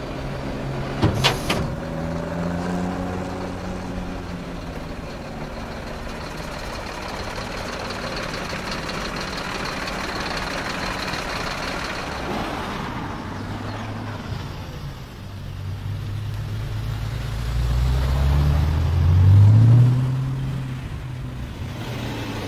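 Audi performance car's exhaust: two or three sharp cracks near the start, then the engine running steadily with a brief rev. It accelerates hard with a rising pitch, the loudest part coming near the end.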